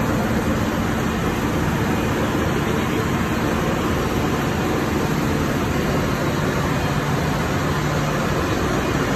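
Engine room machinery running continuously: a loud, steady mechanical din with a low hum.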